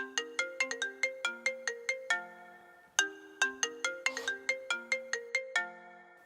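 Phone ringtone: a short melody of quick notes that each ring and die away, the phrase repeating about every three and a half seconds.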